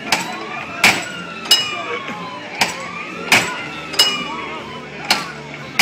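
A hammer striking metal in quick succession, about seven blows roughly one to one and a half a second apart, each with a short metallic ring.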